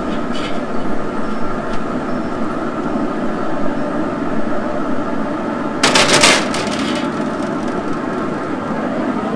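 Steady whirring of a Recteq RT-B380 Bullseye pellet grill running at its 325° set point, with a short clatter about six seconds in.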